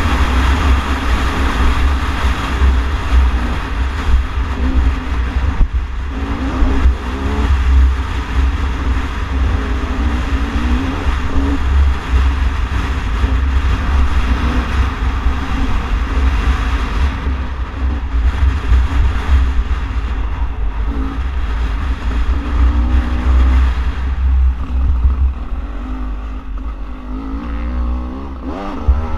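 Beta 300RR single-cylinder two-stroke dirt bike engine being ridden hard, its pitch rising and falling again and again as the throttle opens and shuts, over a heavy low rumble. It eases off after about 24 seconds, then revs up again near the end.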